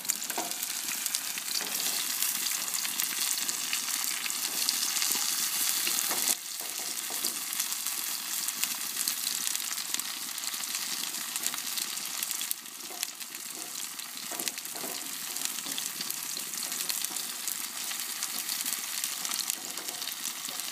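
Salmon and vegetables sizzling in hot pans on a very hot grill: a salmon fillet in a cast iron skillet and vegetables in a paella pan. The dense sizzle drops abruptly about six seconds in and softens again past the middle, with a few faint utensil knocks.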